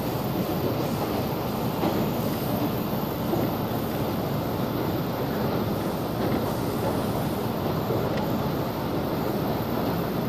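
Steady running noise of a 113-series electric train heard from inside the car, wheels rumbling on the rails at speed, with a couple of faint clicks from rail joints.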